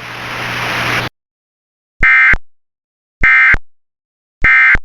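A hiss of static swells and cuts off abruptly about a second in. Then come three short, identical, buzzy digital data bursts about 1.2 s apart: the EAS SAME End of Message tones that close an Emergency Alert System broadcast.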